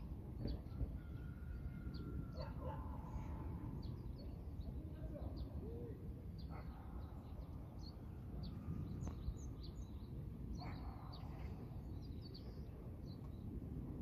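Wild birds chirping and calling: many short, high chirps scattered throughout, over a steady low outdoor rumble.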